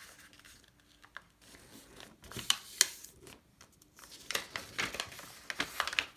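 A sheet of letter paper being folded and creased by hand: crisp rustles and crackles of the paper in irregular clusters, with the sharpest crackles between about two and three seconds in and more rustling near the end.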